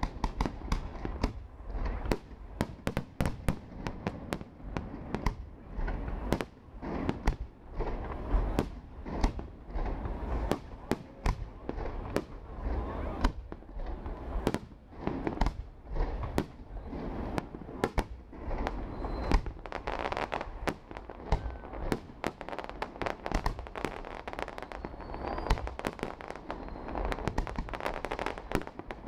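Aerial fireworks display: shells bursting in a rapid, irregular series of bangs, several a second, without a break.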